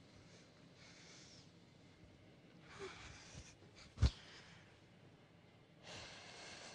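A person breathing in slow, soft breaths, one every two to three seconds, in a quiet room. A single sharp click comes about four seconds in.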